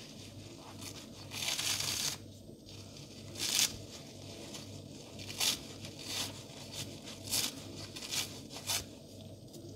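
Crispy soap-filled sponge being torn apart by hand. A longer crackly rip comes about a second in, followed by a string of short, sharp rips about a second apart.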